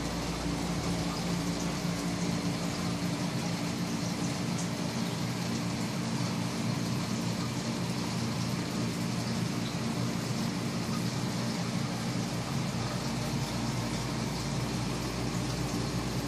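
Steady hum and even hiss of aquarium equipment running: air pumps, filters and bubbling air stones on the fish tanks.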